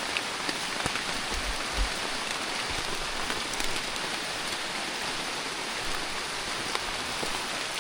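Steady rain falling, with scattered single drops ticking close by and a couple of soft low bumps about a second and a half in.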